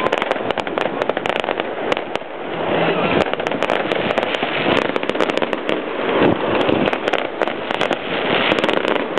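Fireworks going off: a dense, rapid run of bangs and crackles from many shells bursting one after another.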